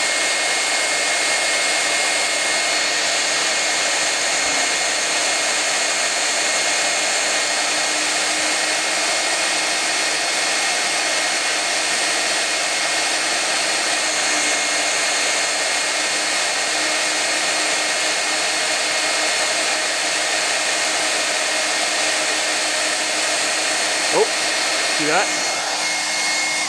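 Hand-held hair dryer on its hot setting running steadily, a loud rush of air with a steady high whine, blown into a computer power supply's fan grille. Two brief, sharp sounds break in near the end.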